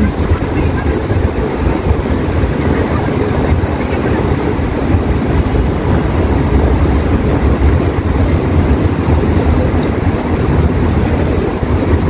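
Steady, loud rumbling noise, heaviest in the low end, with no distinct events.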